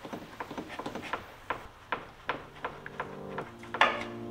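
Hard plastic clicking and knocking as a clutch-fan shroud is worked loose and lifted out from in front of the radiator, with a louder rattle near the end. Past halfway, low droning background music comes in.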